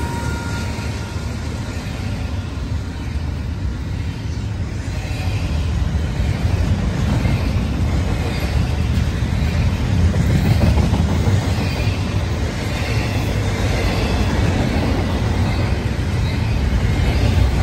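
Norfolk Southern double-stack intermodal freight train rolling past at speed. Its cars and wheels on the rail make a steady low rumble.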